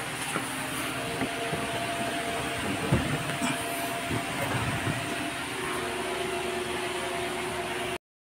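Refrigerator running: a steady mechanical hum with several steady tones and a few light knocks. It cuts off suddenly near the end.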